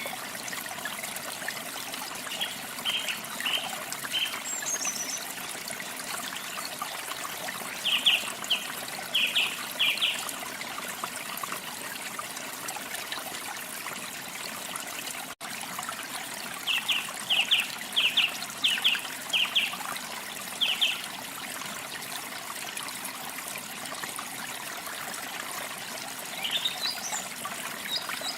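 Water trickling steadily, as from a small stream, with small songbirds giving short series of quick high chirps several times over it.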